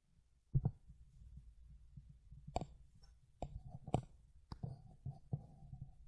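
Handling noise on a hand-held camera: a low rumble with about half a dozen scattered knocks and clicks.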